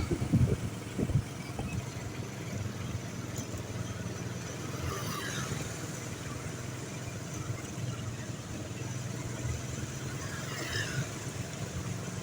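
A vehicle engine running steadily with a low hum amid roadside traffic, with a few sharp knocks in the first second.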